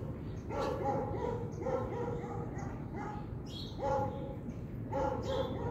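A pet giving a series of short, high-pitched cries, about one a second.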